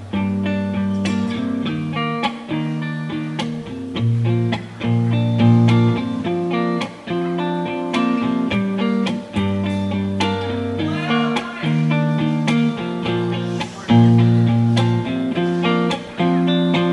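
Background music: an instrumental passage led by guitar, with plucked notes over a changing bass line.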